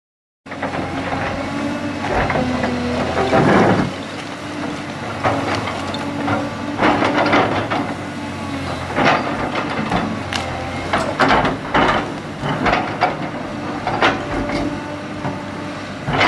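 Komatsu PC300LC-6 hydraulic excavator's diesel engine running under load while it digs, with repeated knocks, clanks and scraping of the steel bucket against rock and dirt.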